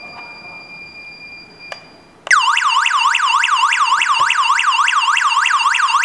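Burglar alarm siren of a W4B GSM/WiFi home alarm kit, going off suddenly about two seconds in with a loud electronic wail that sweeps rapidly up and down in pitch, about four sweeps a second. It is the intrusion alarm of the armed system, set off by a triggered sensor.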